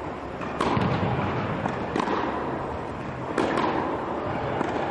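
Tennis balls struck by rackets and bouncing on the court, sharp pops about every second and a half, echoing in a large indoor hall.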